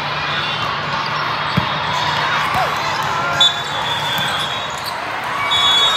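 Volleyball tournament hall din: many overlapping voices, with a sharp thud of a ball strike about one and a half seconds in. A short whistle blast comes midway and another near the end.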